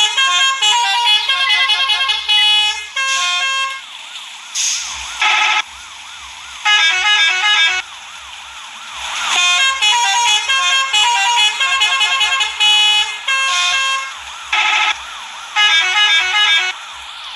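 Bright electronic tune of short, quickly repeating synth notes in phrases with brief pauses, joined about five seconds in by a regular low drum beat.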